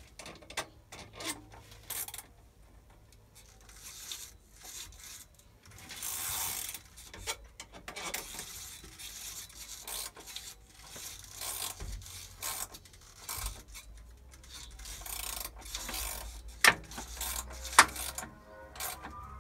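Hand work on a metal part: irregular rubbing and scraping with small clicks, and two sharp louder clicks near the end.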